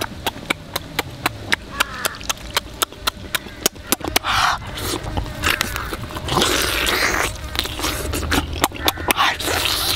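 A person eating roast duck meat: wet chewing and lip smacks several times a second, with a few longer breathy slurps.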